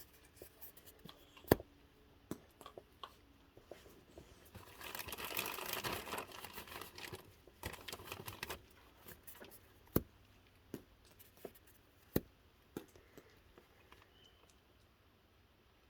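Raccoons feeding on snacks: faint, scattered taps and clicks, with a few seconds of rustling and crinkling in the middle.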